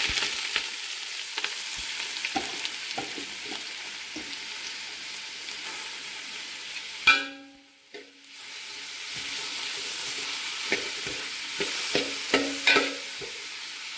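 Sliced onions and green chilli sizzling in hot oil in a metal pan, stirred with a spoon that clicks and scrapes against the pan. About seven seconds in there is a sharp clink, and the sizzle drops out for about a second before it resumes.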